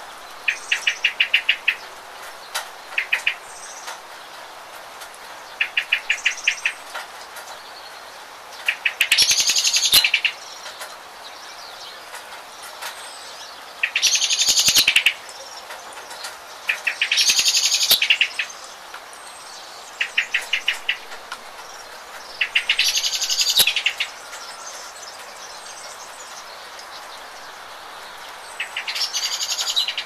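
Songbirds singing over a steady patter of rain. Short trills of quick repeated notes alternate with louder, fuller song phrases about a second long, every few seconds.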